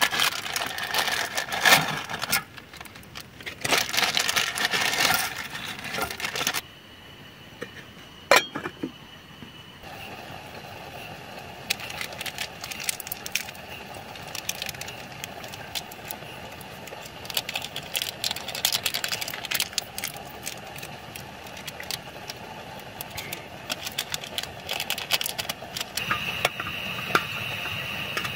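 Instant noodles being cooked on a small camping stove. Packet and wrapper crinkling and rustling come first, a sharp click follows about 8 seconds in, and from about 10 seconds on there is a steady hiss like a burner, with scattered light clicks and knocks of pot and utensils.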